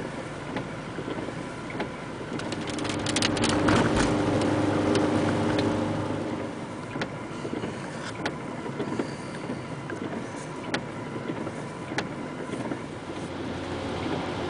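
Vehicle cabin noise while driving on wet streets in the rain: a steady hiss of road noise that swells into a louder engine hum for a few seconds, starting about two and a half seconds in. Scattered sharp ticks sound throughout.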